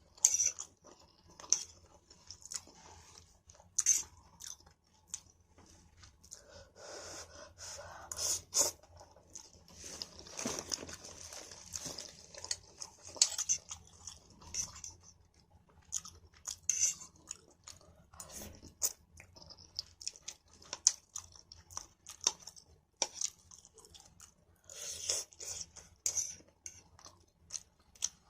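A person chewing a mouthful of stir-fried noodles (pancit canton) close to the microphone, a run of irregular small clicks.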